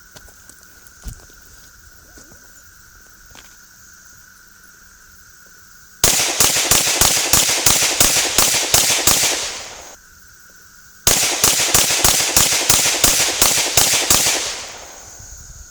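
Canik TP9SFX 9mm pistol fired rapid-fire in two strings of about a dozen shots each, roughly three shots a second, with a pause of about a second and a half between the strings. A few light clicks of handling come first.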